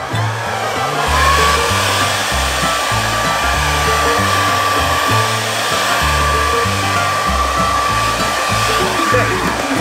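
Handheld hair dryer running, a steady rush of air with a motor whine that rises to pitch about a second in and holds; it dies away near the end.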